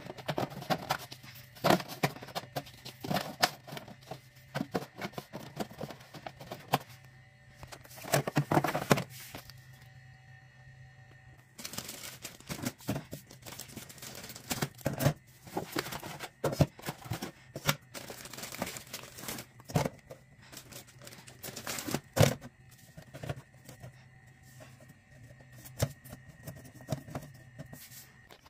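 Small plastic drink bottles being handled and set into a refrigerator's plastic crisper drawer and door shelves: a string of irregular knocks and clicks, with a short lull about ten seconds in.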